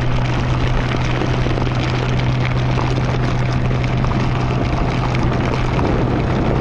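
Yamaha R6 inline-four engine running at a steady cruising speed, a constant low hum that neither rises nor falls, under a steady wash of wind and tyre spray from water standing on the road.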